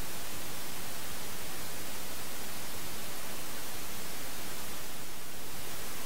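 Bench belt sander running with a steel knife blank, cut from a lawnmower blade, held against the belt: a steady, even grinding hiss.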